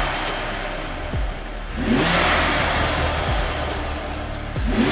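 BMW N55 turbocharged straight-six, fitted with an AIRTEC cone intake, revved in short blips about every two and a half seconds. Each blip rises in pitch with a rush of noise, then falls back. Faint music runs underneath.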